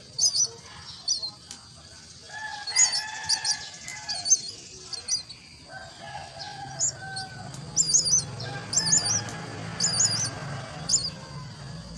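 Myna chicks calling at the nest with short, high squeaky cheeps in repeated clusters. Some lower, longer calls are mixed in during the first half.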